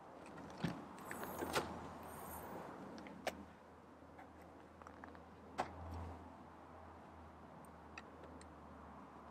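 Keys jangling and clicking as an SUV's rear liftgate is unlatched and swung open, followed by a few sharp knocks from a wooden ramp being handled and stood on end. The sounds are faint, over a low steady hum.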